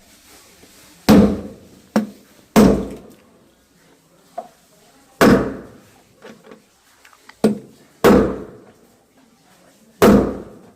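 Hammer blows knocking on a washing machine's drum shaft and bearing to drive the old bearing out: about seven heavy strikes at uneven intervals, each ringing out briefly, with a lighter tap between them.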